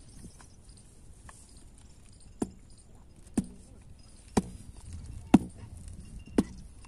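Five sharp knocks about a second apart, struck at the metal flange on the end of a corrugated pump suction hose as it is being fitted.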